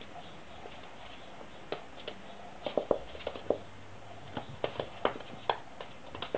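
A puppy's claws clicking and paws tapping on a hardwood floor as it scrabbles and pounces: irregular sharp clicks, coming in clusters from about two seconds in.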